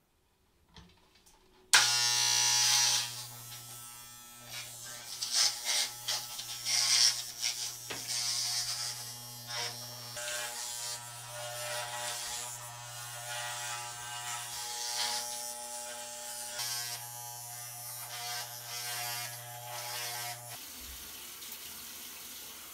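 Corded electric hair clippers switch on suddenly about two seconds in and run with a steady buzz, rasping each time they bite into thick hair. They switch off shortly before the end.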